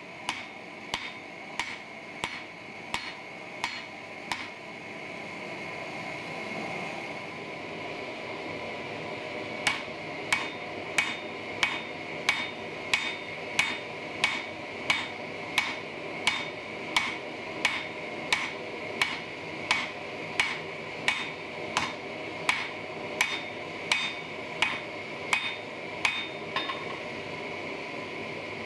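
Hand hammer striking a yellow-hot five-layer go mai billet on an anvil to set the forge welds, in steady blows about one and a half a second. The blows pause for about five seconds, then resume in a long regular run that stops near the end. The forge runs steadily underneath.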